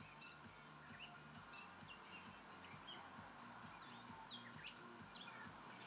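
Songbirds chirping: many short, separate high chirps and whistles, some rising and some falling, scattered over faint background noise.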